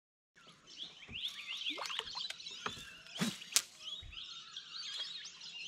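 A chorus of birds calling, many overlapping chirps and whistles, with a few sharp knocks, the loudest about three and a half seconds in, and a couple of low thumps.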